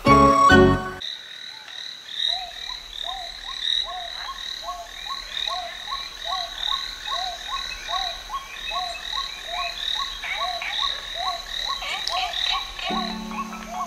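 Frogs croaking in an even rhythm, about three calls every two seconds, with a steady high trill above them. Music plays briefly at the start and comes back near the end.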